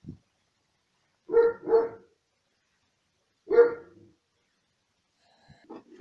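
A dog barking: two quick barks, then a single bark about two seconds later.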